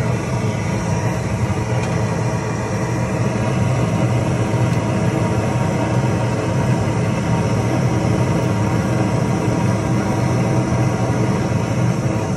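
Long-wand propane torch burning steadily, its flame played into charcoal briquettes in a chimney starter to light them: a loud, even rushing noise, heaviest in the low end, that does not let up.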